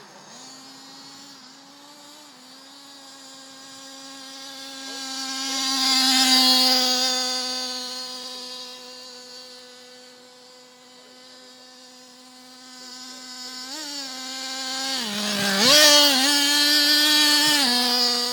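Small nitro engine of a 1/8-scale XTM two-speed RC buggy running at speed with a high, steady buzz, growing louder as the buggy comes close about six seconds in and again near the end, where the pitch dips and rises sharply with throttle changes.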